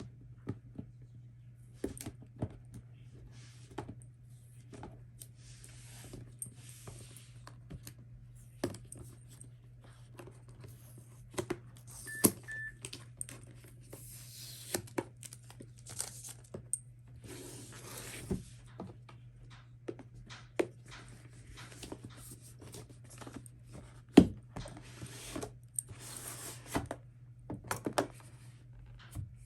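Packaging rustling and crinkling in bursts, with scattered clicks and knocks from a keyboard and its box being handled, over a steady low hum. Two short high beeps about twelve seconds in.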